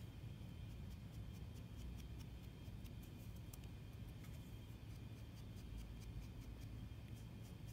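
Quiet room tone: a steady low hum with faint, irregular light ticks.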